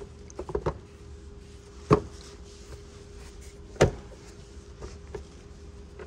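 Plastic push clips being pressed into the front radiator cover panel, a few sharp clicks with louder ones about two and four seconds in.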